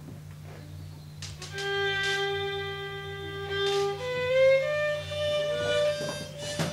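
Solo fiddle bowed in an old-time style. It comes in about a second in with one long held note, then plays a few slow notes stepping up in pitch, over a steady low electrical hum.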